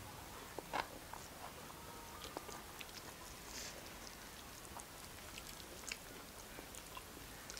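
Quiet eating sounds of hand-eating: fingers mixing and scooping rice and curry on steel plates, with chewing and scattered small clicks and smacks.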